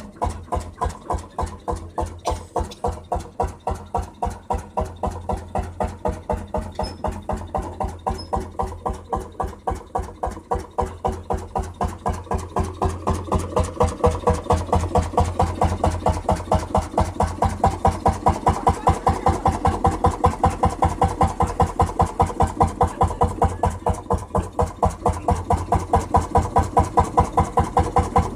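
Vintage tractor engine running with slow, evenly spaced exhaust beats, about four a second, growing louder about halfway through.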